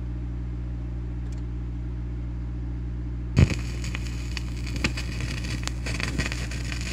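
Playback of a dub plate starting: a steady electrical hum, then a thump about halfway through as the sound opens up into hiss with scattered clicks and crackle of surface noise.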